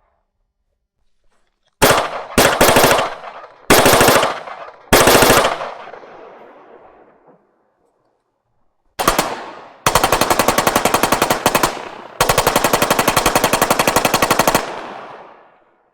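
Assault rifle automatic gunfire: four short bursts of rapid shots, a pause, then a brief burst and two long sustained bursts of full-auto fire, each ending in an echoing tail that fades out.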